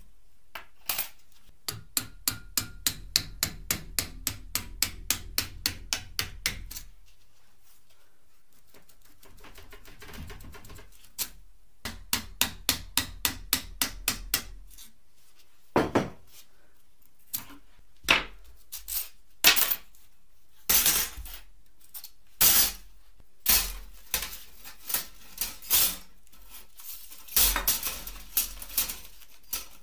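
Two runs of quick, light hammer taps on a thin punch, about three a second, driving the steel laminations out of a small transformer core held in a vise. After that come irregular metallic clinks as the thin laminations are pulled out and dropped onto a pile of plates.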